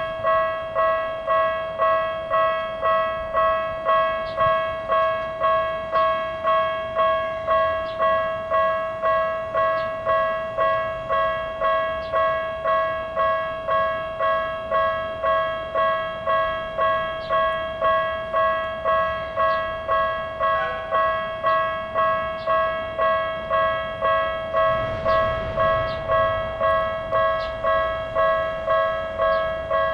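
Japanese railway level-crossing warning bell of the electronic Tokyu type, ringing steadily at about one and a half strikes a second.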